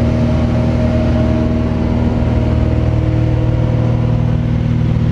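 Cessna 182's piston engine and propeller droning steadily at climb power, heard inside the cabin.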